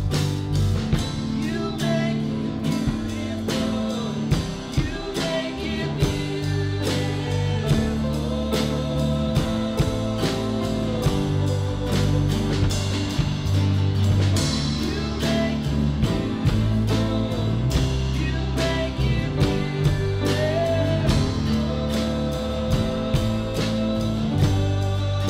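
A worship song played by a band, with singing over guitar and bass and a steady beat.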